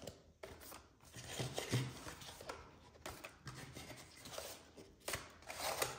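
Rustling and handling of a cardboard children's game and its pieces, in short, uneven bouts.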